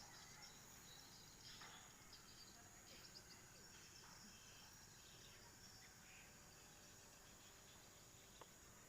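Near silence: faint outdoor ambience with insects chirping steadily and a faint click near the end.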